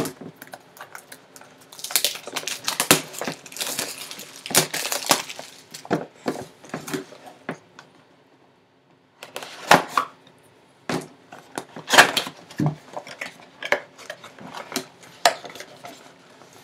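A cardboard collectible box being opened and handled by hand, with its inner cardboard tray and a plastic-wrapped baseball pulled out. There are irregular taps, knocks and scrapes of cardboard, a few seconds of scratchy rustling about two seconds in, a brief hush near the middle, and sharper knocks in the second half.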